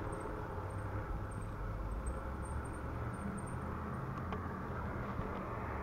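Steady low wind rumble and tyre-on-road noise from riding a bicycle, picked up by a GoPro's microphone.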